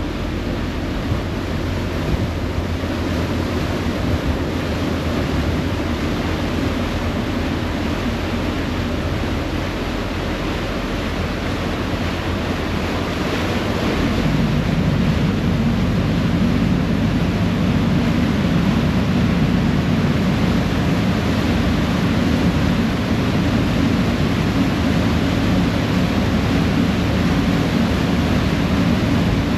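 A passenger ferry's engine droning steadily at the stern, with its propeller wake churning and wind buffeting the microphone. About halfway through, the engine noise grows louder and stays so.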